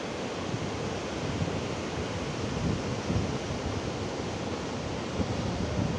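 Ocean surf breaking continuously over a rocky reef shore, a steady rushing wash with wind gusting on the microphone.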